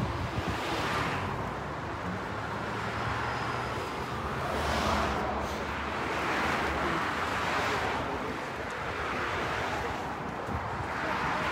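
Street traffic: cars passing on the road, swelling up and fading every couple of seconds, with wind on the microphone.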